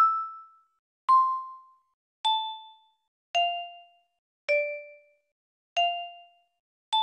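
A slow tune of single bell-like chime notes, one about every second. The pitch steps down over five notes and then climbs back up. Each note rings briefly and dies away.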